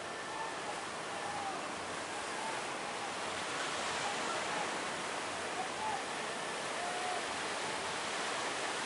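Big sea waves breaking, a steady wash of surf noise.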